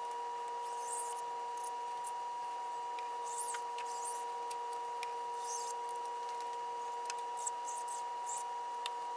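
Faint, scattered scratchy rubbing of fingers working glue along the edge of polyester screen-printing mesh on a metal frame, over a steady high-pitched hum.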